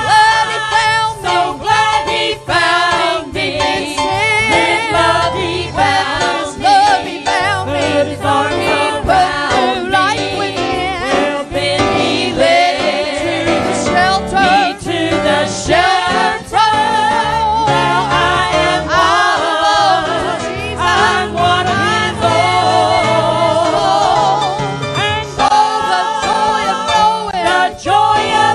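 Gospel song sung by several voices with wavering sustained notes, over instrumental accompaniment with a bass line moving in steps.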